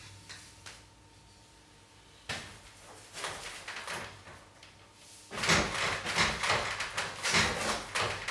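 Brush strokes scraping across a stretched canvas as oil paint goes on. A few scattered strokes come first, then from about halfway a quick, louder run of rough, scrubbing strokes.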